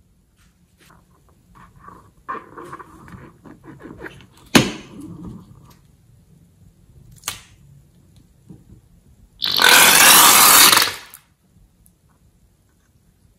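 Slime being squeezed out of balloons into a glass bowl: soft squelching and crackling, two sharp clicks, then a loud rushing hiss of about a second and a half near the end as slime and air spurt out of a cut balloon.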